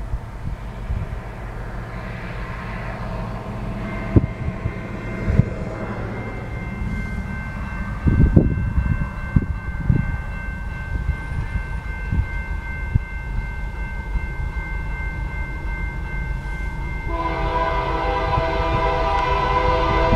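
Railroad crossing warning bell starts ringing about four seconds in as the crossing signals activate, over a low rumble of an approaching diesel freight train. About three seconds before the end, the lead GE AC44CW locomotive's multi-note air horn starts sounding loudly.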